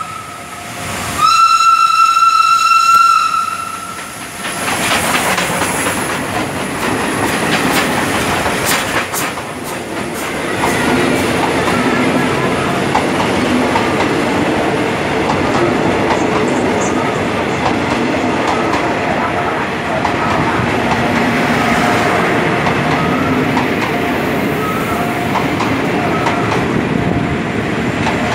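Steam locomotive whistle sounds one long steady blast about a second in, then the steam-hauled passenger train runs past close by: the locomotive goes by and a long line of carriages follows, wheels rumbling and clattering over the rail joints.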